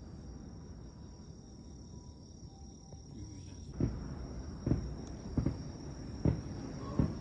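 Distant fireworks booming in a quick, regular series, about one boom every 0.8 seconds, starting a little after halfway over a low rumbling background.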